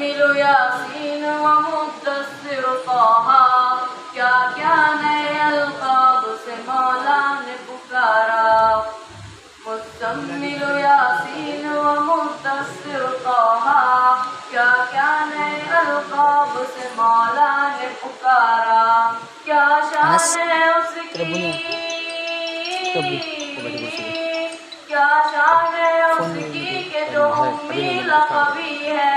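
A qari's solo voice chanting Islamic devotional verse unaccompanied over a microphone, in long melodic phrases with drawn-out, wavering held notes.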